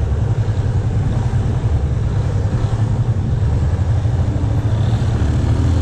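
Yamaha FZ25 single-cylinder motorcycle running as it is ridden slowly, heard as a steady low rumble from the handlebar-mounted camera's microphone.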